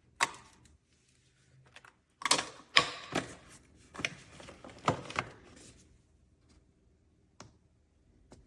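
Irregular clicks and knocks of hard objects being handled: one near the start, a quick clattering run in the middle, and a lone click near the end.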